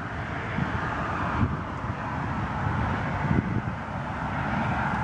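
Wind buffeting the microphone, an irregular low rumble in gusts, over a steady outdoor hiss.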